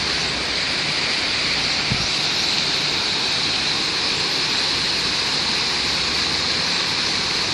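Waterfall pouring: a steady rush of falling water, with a brief low bump about two seconds in.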